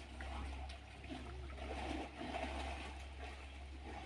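Rushing water of a wide, muddy river, a steady even wash of noise with a low rumble under it.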